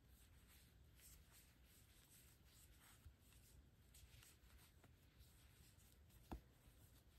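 Near silence, with faint rustling and small ticks of a metal crochet hook drawing yarn through stitches; one sharper click near the end.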